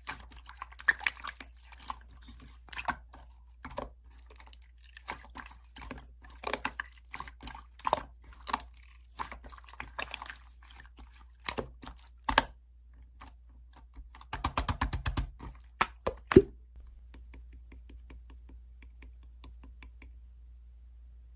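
Slime being squished and poked by hand, making irregular sticky clicks and pops, with a rapid run of crackling clicks about fourteen seconds in. The last few seconds are quieter.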